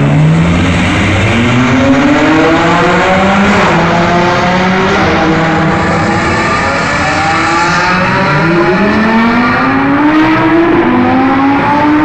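Supercar engines accelerating hard through the gears, the pitch climbing and dropping back at each upshift several times over, echoing in the tunnel.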